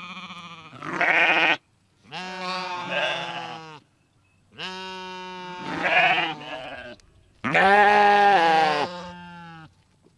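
Domestic sheep bleating: about four long, wavering baas one after another, each cut off sharply, with short silent gaps between them.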